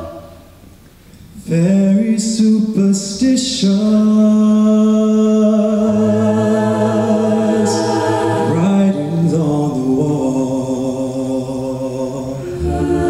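Mixed-voice a cappella group singing sustained chords in close harmony into handheld microphones. After a lull of about a second and a half, the full chord comes back in, and a low bass voice joins about six seconds in.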